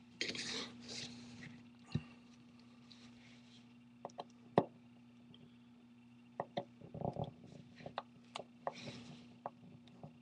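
Faint, scattered clicks and small taps of a precision screwdriver working screws out of an iPhone 4S's metal frame and logic board, with a cluster of ticks around the middle, over a steady low hum.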